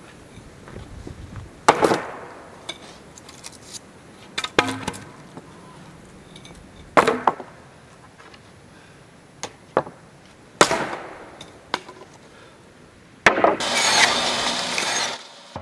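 Dry oak fence boards giving four sharp wooden knocks and clatters, a few seconds apart, as they are chopped and handled. Near the end a bandsaw cuts through a board for about two seconds.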